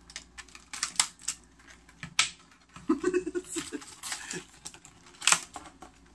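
A foil and plastic packet being torn open and crinkled by hand: scattered short crackles and rustles, with a few sharper crackles about a second in, just after two seconds, and after five seconds.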